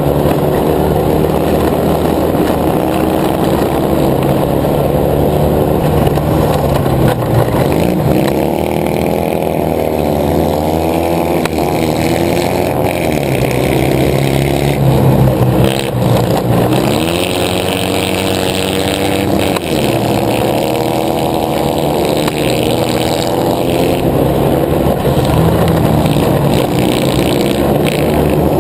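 A racing buggy's engine at high revs, heard from on board. Its pitch climbs and falls several times as the throttle is lifted and reapplied through the corners.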